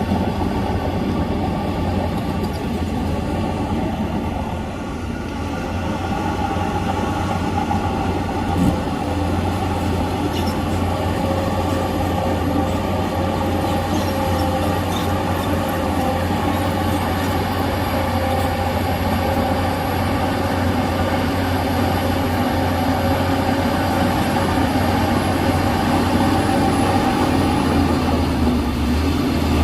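Shantui crawler bulldozer's diesel engine running steadily, with its steel tracks moving; a single knock about nine seconds in.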